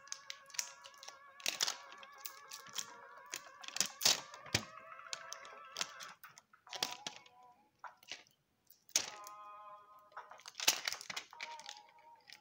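Stainless steel link bracelet and clasp of a Casio Edifice EQB-1000D watch clicking and clinking irregularly as it is handled and flexed, over quiet background music.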